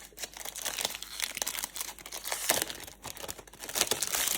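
The outer cover of a perfume box being torn open and unwrapped by hand, crinkling and tearing in irregular crackles.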